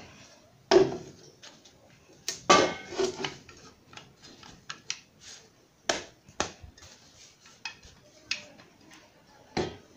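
Steel parts of a homemade drill press's chuck assembly knocking and clinking against each other as they are fitted together by hand, in scattered sharp clicks and knocks.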